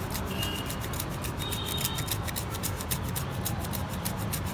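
Flat metal hand grater scraping down a block of cheese in rapid, even strokes, several a second, shredding it onto a dessert cup.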